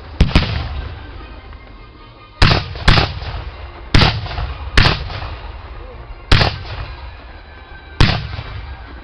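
A battery of cannons firing in a ragged salvo: about eight heavy booms, several in close pairs, each trailing off in a long rumbling echo.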